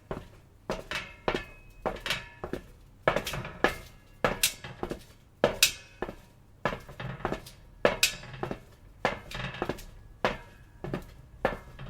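Footsteps on metal: a walking rhythm of sharp, ringing strikes, many steps landing as a quick double hit, about one step a second.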